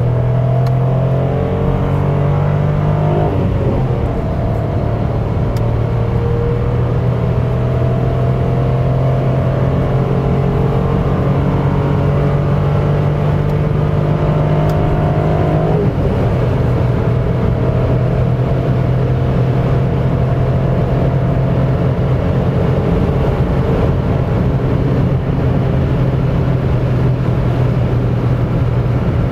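The 2018 Mitsubishi Space Star 1.2's three-cylinder engine is running under full load at high autobahn speed, heard from inside the cabin over steady tyre and wind noise. The engine note climbs slowly and drops suddenly twice, about three seconds in and near the middle, then holds fairly steady.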